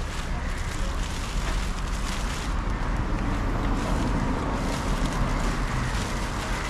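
Steady rumbling wind noise on the microphone over outdoor street noise.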